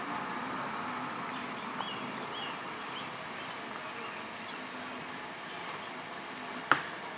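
Steady outdoor street ambience with a few faint high chirps in the first few seconds, and one sharp click near the end, the loudest sound.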